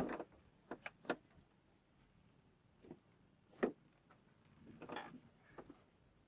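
Scattered clicks and knocks of hardware being handled at an HH-60G Pave Hawk helicopter's cockpit side window, the sharpest at the very start and another clear click a little past halfway, with a soft rustle near the end.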